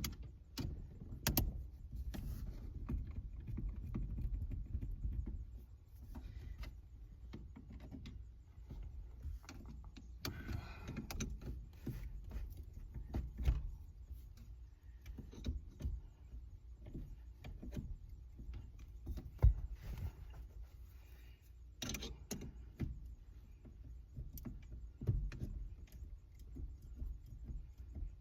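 Scattered clicks, knocks and rattles of hand tools and small metal parts being handled, over a low rumble.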